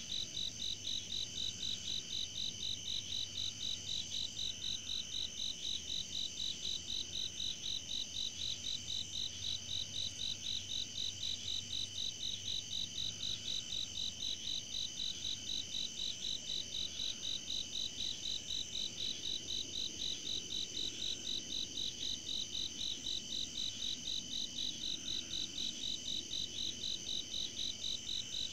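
Night chorus of crickets and other insects: a steady high trill under a louder high chirp that pulses evenly, two or three times a second.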